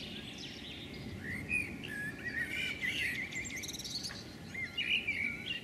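Small birds chirping and singing: quick rising and falling calls, a busy warbling run in the middle and sharper calls near the end, over a steady low background noise.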